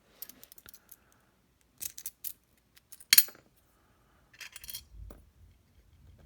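Small metal lock parts clicking and clinking as they are handled and set down on a desk, with a sharp clink about three seconds in.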